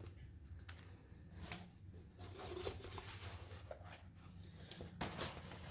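Faint rustling and soft ticks of paper being handled: a printed reference photo set down on a plastic bag of paint pots and a rolled paint-by-numbers canvas picked up. A low steady hum runs underneath.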